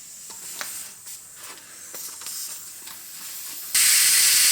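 Faint clicks of a small screwdriver working a tyre valve core loose. Near the end, a sudden loud, steady hiss as the core comes free and air rushes out of the tyre through the valve stem, deflating it.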